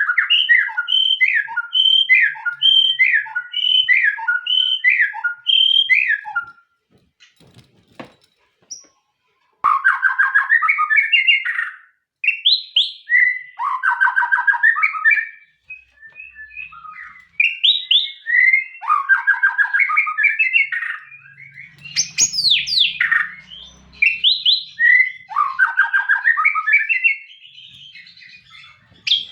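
White-rumped shama (murai batu) singing. It opens with a run of about a dozen quick falling whistled notes over the first six seconds, then goes into varied rich phrases broken by short pauses.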